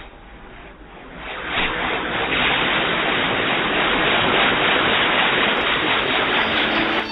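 Loud steady rushing noise that swells about a second in and cuts off suddenly at the end.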